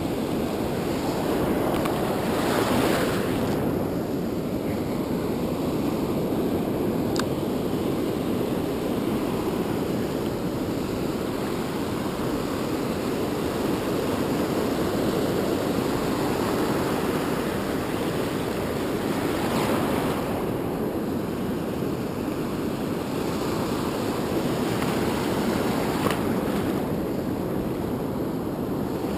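Ocean surf breaking and washing over the shallows in a steady rush, swelling louder a few times as waves come in.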